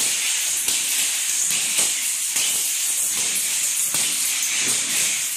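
Surul vaal, a flexible steel sword, whirling through the air in continuous spins: a steady hissing swish.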